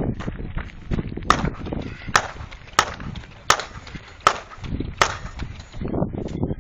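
Six gunshots in a steady string, about three-quarters of a second apart, from a competitor firing at targets on a 3-gun stage.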